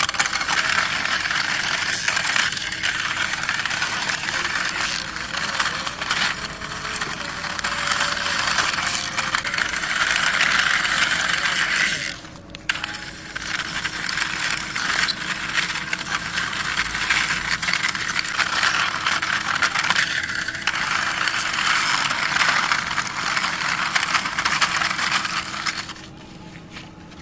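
Toy bulldozer pushed along by hand, its running gear clattering and clicking continuously. It breaks off briefly about twelve seconds in and stops near the end.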